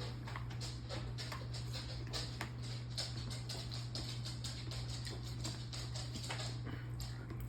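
Close-miked eating sounds: many small, irregular clicks and taps of chewing and cutlery on a plate, over a steady low hum.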